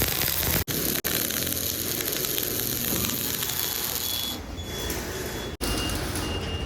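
Stick-welding arc crackling and hissing steadily, cutting out abruptly for an instant three times.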